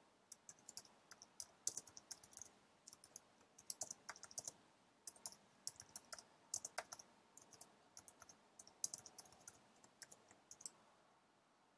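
Faint typing on a computer keyboard: irregular runs of keystroke clicks that stop shortly before the end.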